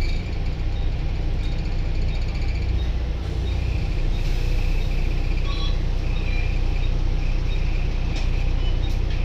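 Interior sound of a Volvo B9TL double-decker bus with a Euro 3 diesel engine: a steady low engine rumble, getting a little louder about three seconds in.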